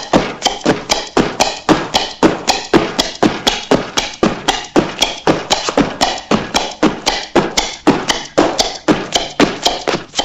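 Old cartoon sound effect: a fast, even run of sharp knocks, about four or five a second, each with a short ring-out, stopping near the end.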